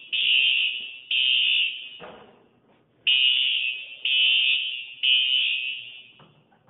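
Smoke detector alarm sounding, long high-pitched beeps in groups of three with a pause of about a second between groups: the temporal-three pattern of a smoke alarm going off.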